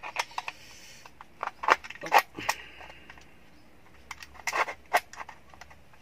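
Clicks and knocks of a seat belt retractor's plastic cover and metal mounting bracket being handled and pressed into place in a car's door pillar. They come in several short clusters, the loudest about two seconds in.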